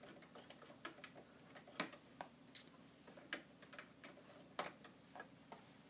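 Faint, irregular small clicks and ticks from hands handling a cloth mask at a sewing machine that is not running.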